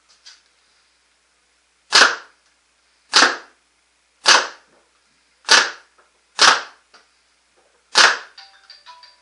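A Proto Matrix Rail (PMR) 2011 paintball marker fitted with a 360 QEV fires six single shots of reusable reballs on compressed air, about a second apart. Each shot is a sharp pop with a short echo off the concrete-block garage walls.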